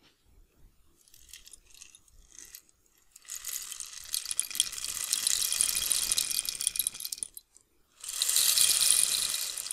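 A percussion rattle played as a water sound effect: a dense stream of small clicks poured for about four seconds, then a second, shorter pour near the end, after a few faint scattered ticks.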